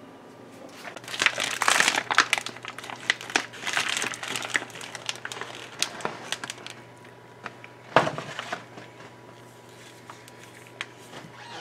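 Plastic cryovac meat packaging crinkling and crackling as the roast is unwrapped, followed by a few light clicks and one sharp click about eight seconds in.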